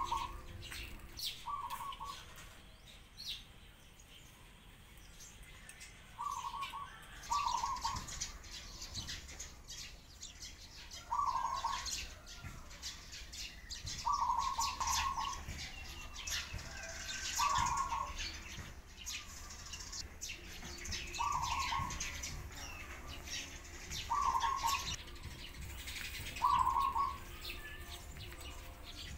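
Dove cooing in short calls about every three seconds, over a busy chorus of sparrows chirping.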